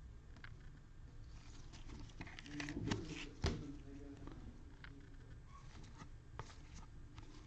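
Faint rustling and clicking of trading cards and their packaging being handled, with a sharper click about three and a half seconds in.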